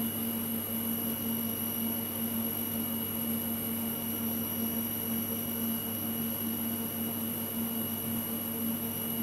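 Steady machine hum with a constant high-pitched whine above it, unchanging throughout.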